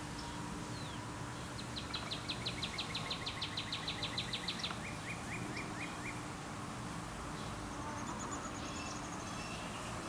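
A songbird singing outdoors: a fast trill of about twenty quick notes lasting some three seconds, then a short run of lower notes, with a few faint high notes later. Steady outdoor background noise runs underneath.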